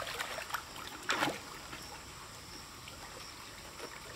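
Water splashing and sloshing in a fish pond, with a louder splash about a second in.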